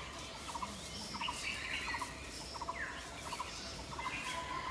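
Birds calling in the trees: a short stuttering call of a few quick notes, repeated over and over, with fainter chirps above it.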